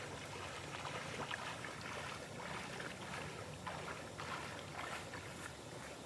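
Footsteps wading through a shallow stream, water sloshing and splashing at each irregular step, over the steady rush of the flowing stream.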